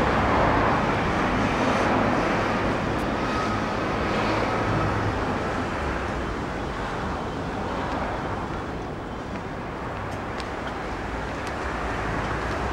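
Road traffic passing along a street: a steady rumble of engines and tyres that is louder in the first couple of seconds and eases off towards the middle.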